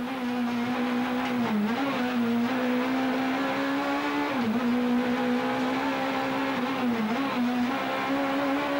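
Rally car engine heard from inside the cockpit, held at high revs and running at a steady pitch, with three brief dips in revs that recover at once.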